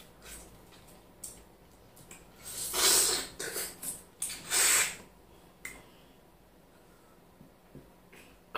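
Two loud, hissing breaths drawn in at the mouth while eating crab legs, about three and four and a half seconds in, with a few faint clicks of eating between.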